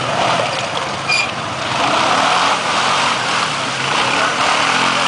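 Quad bike (ATV) engines running and revving, the sound swelling and easing as the quads ride the off-road track.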